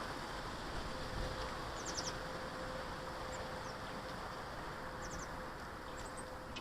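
Small garden birds giving short, high chirps, a quick run of three or four notes about two seconds in and again about five seconds in, with a few single notes between. Behind them is a steady outdoor rush and a faint constant hum.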